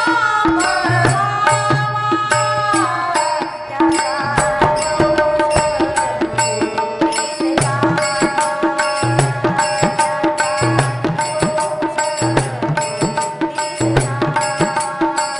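Marathi devotional bhajan: a woman singing a long melodic line over a harmonium's held chords. Small brass hand cymbals (taal) are struck in a steady rhythm, and a drum keeps the beat.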